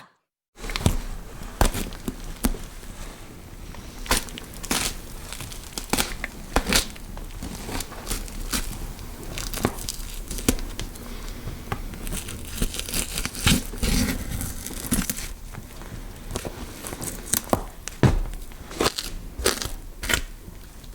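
Horror Foley effect of flesh being scraped and cut: rough scraping and crackling with many irregular sharp clicks and knocks. It starts after a short silence.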